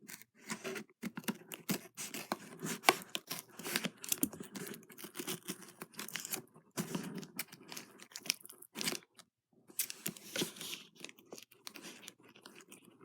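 A parcel's packaging being opened by hand: irregular tearing, crinkling and scraping with sharp clicks, pausing briefly about nine seconds in.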